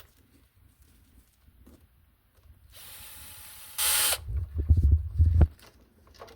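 A small power tool runs briefly, getting louder for a moment near the end of its run. It is followed by a series of loud knocks and rattles as the console's parts are worked on.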